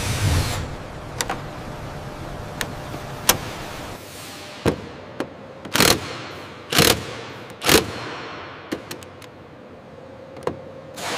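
Hand tools at work: sharp clanks and short tool bursts over a steady workshop hum, with four louder strokes in quick succession around the middle.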